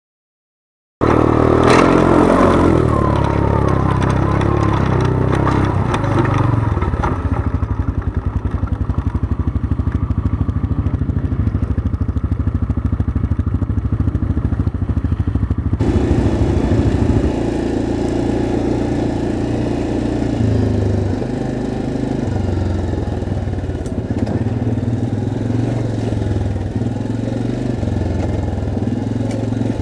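ATV engine running under load through a creek crossing, starting suddenly about a second in with water splashing over the machine, then a steady engine drone as it climbs out onto the trail; the engine note changes about halfway through.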